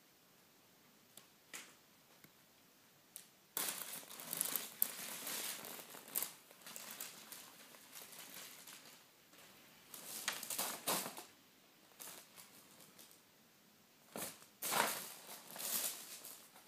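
Paper gift bags and wrapping paper crinkling and rustling as a Ragdoll kitten moves about in them, in three bouts, the longest a few seconds in.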